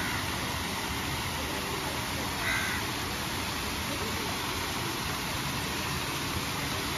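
Steady rush of water pouring from pool fountain spouts into the pool. A crow caws once, about two and a half seconds in.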